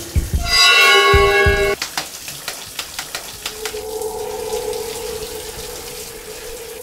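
Dramatic horror-style music: a loud held chord with deep drum hits for the first second and a half or so, then a single held note, over the steady hiss of a running shower.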